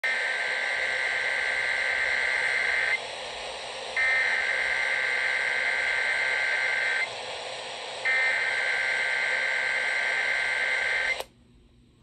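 Emergency Alert System SAME header data bursts received on AM radio: three long, harsh two-tone warbling bursts, each about three seconds long with a one-second gap between them, over a steady hiss of AM static. The last burst cuts off sharply a little after eleven seconds.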